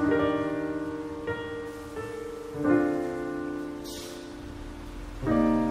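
Background piano music: soft, sustained chords struck every second or so, each fading away slowly.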